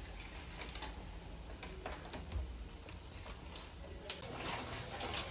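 Dry noodle sticks clicking and ticking against a steel pot's rim as they are tipped into boiling water: scattered light clicks, one sharper near the end.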